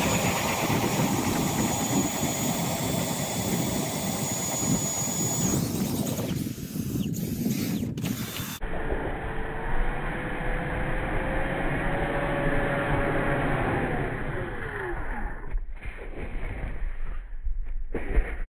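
Power ice auger boring through lake ice, with a loud, steady grinding and chattering. About halfway through the sound changes: the auger, now lifted clear of the hole, spins with a whine that rises slowly and then winds down, and a few knocks follow near the end.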